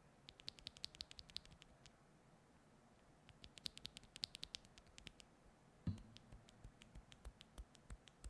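Typing on a plateless custom mechanical keyboard with Akko Radiant Red linear switches: two quick runs of key clicks, then a single deeper, louder thud just after the middle, followed by slower separate keystrokes.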